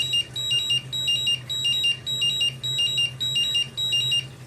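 LiPo battery charger beeping its charge-complete alarm: the battery has finished charging. It is a short high electronic beep pattern repeated about eight times, stopping shortly before the end, with a steady low hum underneath.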